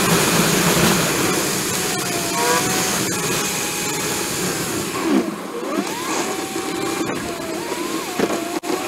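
Steady road and engine noise inside a moving vehicle's cabin, with a faint whine that wavers in pitch and swoops sharply a couple of times.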